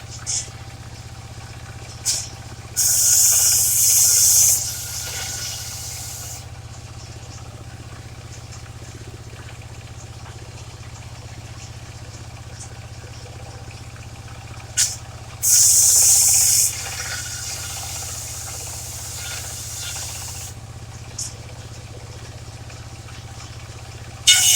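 Mobile circular sawmill running steadily, its engine and spinning blade making a constant drone, with two loud high-pitched rasping bursts of a second or two each, about 3 and 15 seconds in, and another at the very end, as the blade cuts into waru wood; a few short sharp clicks in between.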